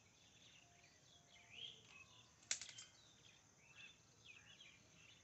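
Near silence with faint bird chirps in the background, and a single short, sharp clink about two and a half seconds in.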